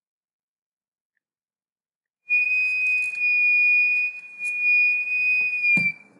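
A steady high-pitched whistle, one held tone with a faint hiss under it, starting a little over two seconds in and lasting nearly four seconds. It dips slightly in pitch just before it stops, with a knock at the very end.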